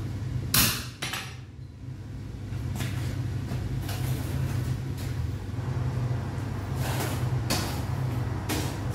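Steady low rumble of a running forge, with scattered metal knocks and clanks from the smith's tools, the loudest about half a second in.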